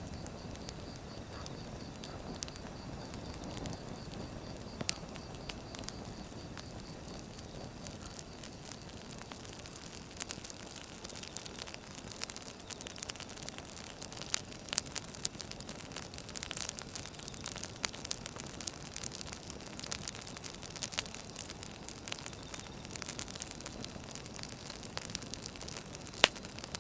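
Firewood burning: a steady soft hiss with frequent sharp crackles and pops, which come thicker and louder from about a third of the way in.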